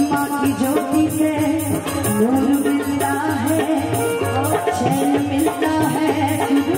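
A woman singing a Bhojpuri folk song into a microphone over an amplified live band, with a steady hand-drum rhythm.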